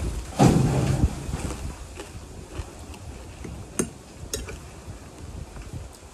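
Eating at a table: a metal fork clicks sharply against a ceramic plate a few times, the clearest two about half a second apart in the middle, after a brief low-pitched sound about half a second in.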